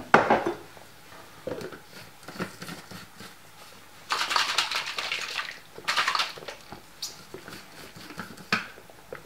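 Water being sloshed in a blender jug to rinse it out, with two rushing bursts about four and six seconds in, amid small knocks and clatters of the jug; a sharp knock at the very start.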